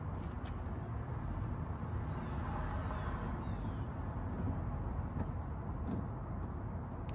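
Steady low outdoor background rumble, with a few faint, light clicks of hands working electrical tape onto the van's front panel.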